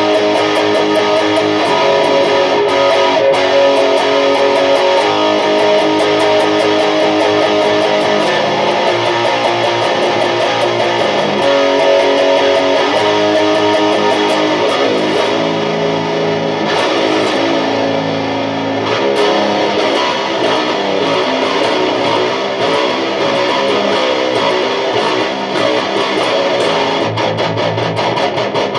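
Electric guitar played through a distorted amplifier on the bridge Bare Knuckle Warpig ceramic humbucker, riffs and sustained chords in drop A-flat tuning with a big, boomy low end, heard through a camera microphone.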